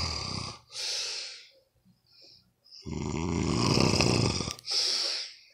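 A person snoring loudly in two long, rattling snores. One trails off about half a second in, and the next runs from about three to four and a half seconds in. Each is followed by a shorter, breathy breath.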